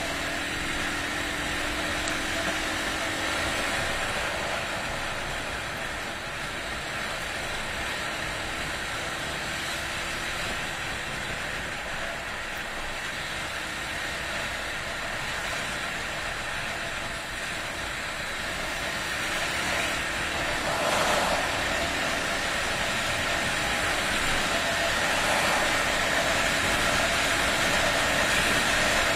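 Honda XR250 single-cylinder four-stroke engine running at a steady cruising speed, largely covered by steady wind rush on the handlebar-mounted camera's microphone. Briefly louder about two-thirds of the way through.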